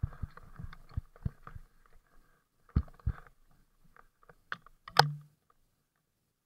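Mountain bike bouncing down a rough, rooty dirt trail: a run of irregular knocks and rattles as the wheels hit bumps, picked up through a helmet-mounted camera, with one sharp clack about five seconds in.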